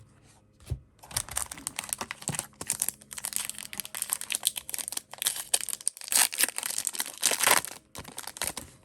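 A trading card pack wrapper being torn open and crinkled, a dense crackling rustle that starts about a second in and stops shortly before the end.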